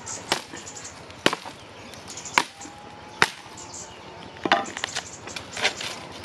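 A curved hand blade chopping a dry wooden pole: about six sharp strikes, roughly one a second.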